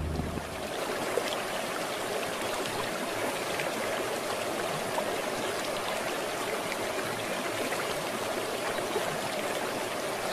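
Running water of a stream, a steady flow with many faint small splashes.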